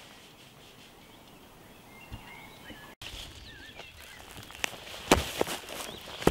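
Faint bird chirps over quiet outdoor background, then, after about four and a half seconds, footsteps crunching through dry fallen leaves: several sharp, crackly steps.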